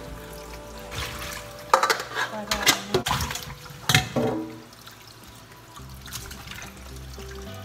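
Tap water running into a stainless steel sink while salmon heads are rinsed by hand in a metal bowl, with a burst of splashing and the bowl clattering around the middle.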